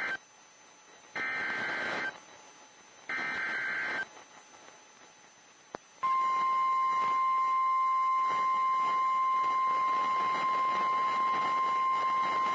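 Three bursts of warbling two-tone SAME digital header data from NOAA Weather Radio, each about a second long, then a steady single-pitched 1050 Hz warning alarm tone that begins about six seconds in and holds. Together they mark the start of a new warning alert.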